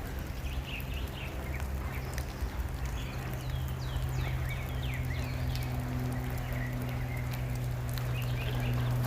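Small birds chirping, short falling chirps repeating, over the steady hiss of light rain, with a steady low hum underneath.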